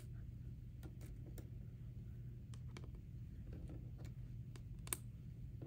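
Small plastic algebra tiles being set down one by one on a whiteboard, giving faint, irregular clicks over a low steady hum.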